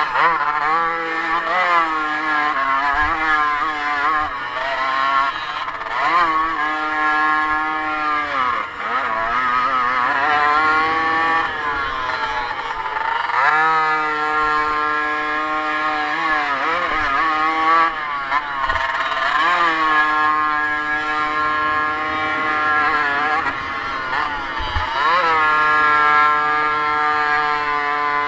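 Motocross bike engine under race load, revving up and falling away again and again, with stretches held at steady high revs.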